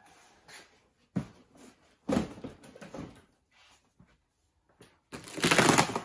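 Cardboard box and clear plastic wrap being handled. There is a sharp knock about a second in, some rustling of the box, then loud crinkling of plastic sheeting from about five seconds in.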